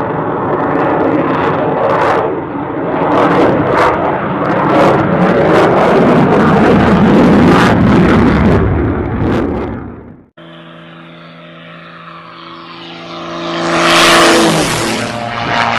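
F-22 Raptor's afterburning turbofan engines giving a loud, crackling jet roar during a banking display pass, cut off suddenly about ten seconds in. Then an aerobatic single-engine propeller plane's engine drone swells as it makes a low pass, its pitch dropping as it goes by near the end.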